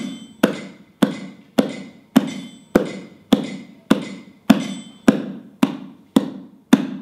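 A stick beating out a steady tempo: sharp knocks a little under two a second, each with a short ringing tail.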